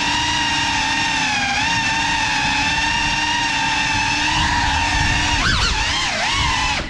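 GEPRC Cinelog 35 cinewhoop on 6S power, its brushless motors and ducted props giving a steady high whine. From about five seconds in the pitch drops and rises sharply several times as the throttle is worked.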